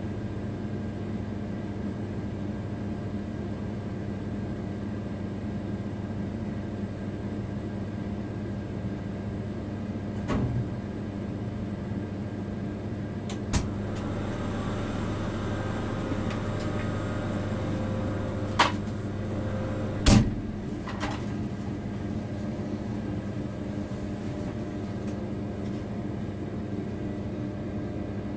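Freight locomotive cab on the move: a steady hum of several low tones, broken by a few sharp clicks or knocks about ten, thirteen and eighteen seconds in. The loudest knock comes about twenty seconds in, when the deepest part of the hum stops.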